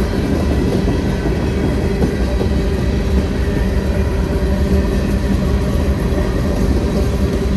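Freight train cars rolling past: a steady, loud rumble of steel wheels on the rails.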